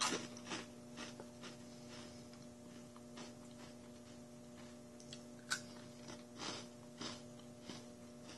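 Small rice crackers being bitten and chewed: a scatter of short, crisp crunches, the sharpest about five and a half seconds in.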